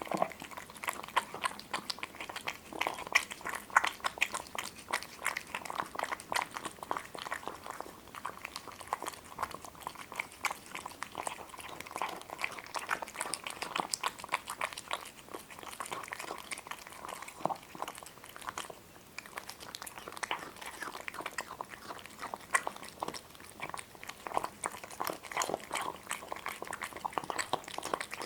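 Close-up chewing and crunching of crisp food: many small irregular crunches and bites in quick succession, easing off briefly about two-thirds of the way through.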